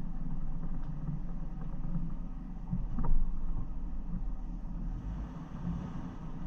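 Off-road vehicle's engine running low and steady as it crawls along a muddy dirt trail, with a single sharp knock about three seconds in.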